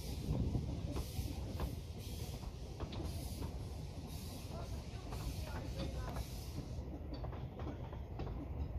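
Narrow-gauge steam train on the move: a steady rumble of the wheels on the rails with a regular beat a few times a second.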